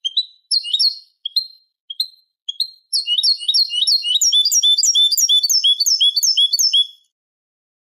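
European goldfinch song from a Málaga-style tutor recording used to teach young goldfinches. It starts with separate short chirps about two a second, then about three seconds in breaks into a fast run of rapid repeated twittering notes that stops near the end.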